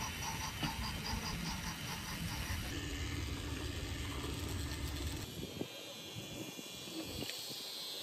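Battery-powered wooden toy trains running on wooden track, making a low rolling rumble with a steady motor hum. A rapidly repeated high chirp comes in the first couple of seconds.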